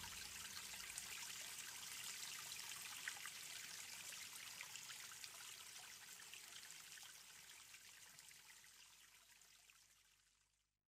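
Faint trickling water ambience with fine crackling ticks, fading out gradually to silence near the end.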